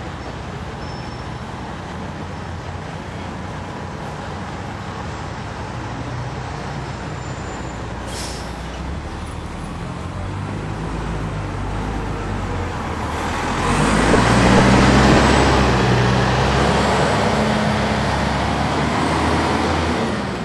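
The Detroit Diesel Series 60 diesel engine of a 2002 MCI D4000 coach bus, heard from on board, running steadily, then pulling much louder from about 13 seconds in as the bus accelerates under load, and easing off near the end. A brief sharp hiss about 8 seconds in.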